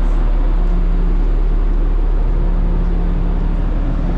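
Steady low drone of a large vehicle's engine running, a constant hum with deep rumble beneath it and no change in speed.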